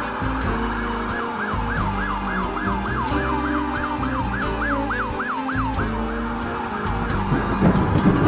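Emergency-vehicle siren in a fast yelp, sweeping up and down about three or four times a second and fading out about six seconds in, over a music score. A loud low rumble swells near the end.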